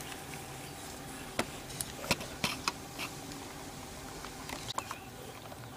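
Light, scattered clicks and taps from a small diecast model van and its parts being handled, over a faint steady hum. The clicks come in a run starting about a second and a half in, and there are a few more near the end.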